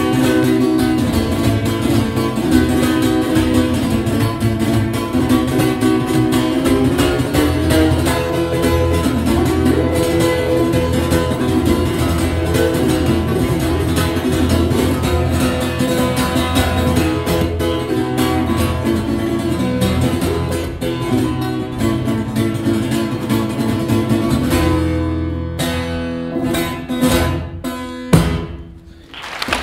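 Taylor 314CE acoustic guitar played fingerstyle: a busy picked passage over a steady low bass, ending with a few separate struck chords in the last five seconds and a final chord that rings and dies away.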